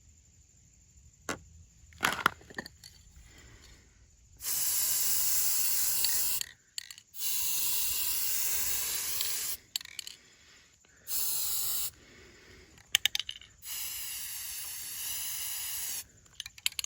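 Aerosol can of gloss black spray paint sprayed in four bursts of hiss, the second the longest and the third short, coating small model-kit parts. A few sharp clicks and knocks of handling come before the first burst.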